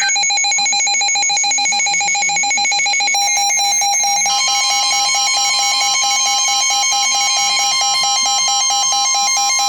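Emergency Alert System alert tones for a tornado warning. A rapidly pulsing alarm beep is joined about four seconds in by a second steady, slightly higher tone, together forming the attention signal that comes before the spoken warning.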